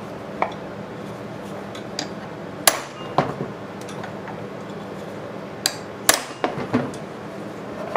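Hammer striking a steel rod set in the pulley of a Briggs & Stratton NR6 engine: several sharp metallic blows at irregular intervals, the hardest two a little past a third of the way in and about three-quarters through. They are blows to break the threaded pulley loose from the crankshaft.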